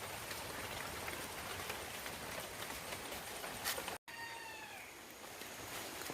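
Steady hiss and splash of running water at fish tanks. About four seconds in it cuts off abruptly, and a single short animal call follows, falling in pitch.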